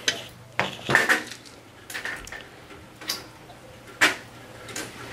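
A few sharp clicks and knocks at irregular intervals, the loudest about four seconds in, over a faint, steady low hum.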